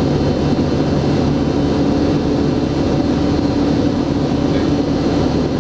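Aircraft engines of a Royal Duke droning steadily on its landing approach, a low rumble with a hum that shifts higher about a second and a half in.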